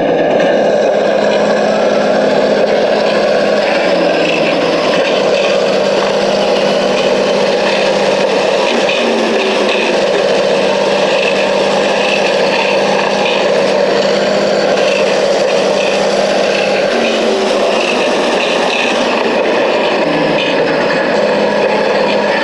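Small electric motor and plastic gearbox of a toy vehicle whirring steadily at constant speed.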